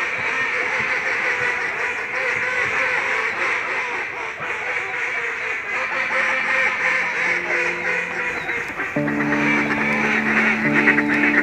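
A large flock of mallards quacking all at once, a dense, continuous din. Slow, held music chords come in about six seconds in and grow louder near the end.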